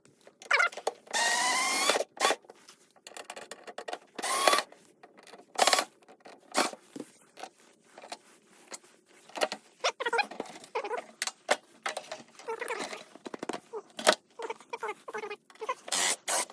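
Cordless electric screwdriver run in short bursts to back out the screws holding the bread maker's base, the longest run about a second long near the start. Between runs come clicks and rattles of the screws and parts being handled.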